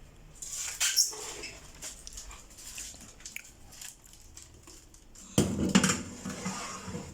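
Granola being stirred and turned over on a baking tray, with scraping and rustling and a louder clatter about five and a half seconds in.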